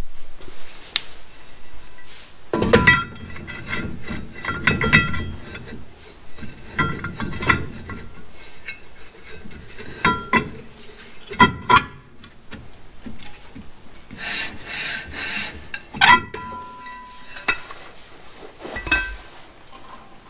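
Irregular metallic clinks and scraping as a new brake drum is slid over the rear drum brake shoes and taken off again, and the shoe hardware is handled. A sharper clank about three quarters through leaves a brief metallic ring.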